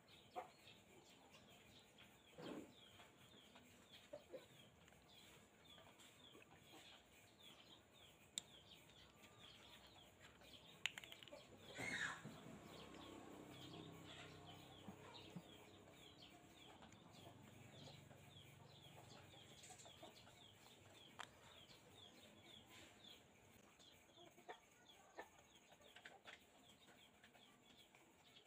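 Faint chickens clucking in the background, with occasional light clicks and taps from small parts being handled.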